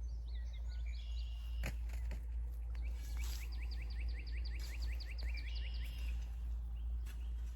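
A songbird singing outdoors: a few short chirps, then a fast trill of repeated down-slurred notes, about five a second, lasting some three seconds. Under it runs a steady low outdoor rumble, with a single soft knock early on.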